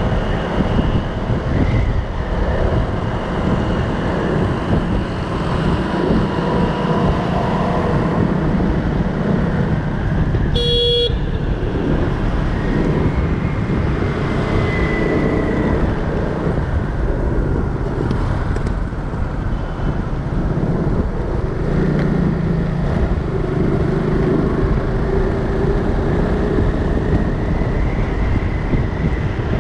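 Steady road traffic noise on a city street, with one short vehicle horn toot about eleven seconds in.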